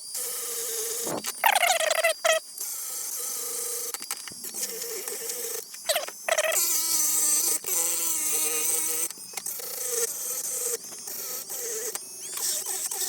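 Small high-speed rotary tool with a cutting disc shaving down a plastic mount: a high-pitched whine that dips in pitch as the disc bites, with several short stops and restarts.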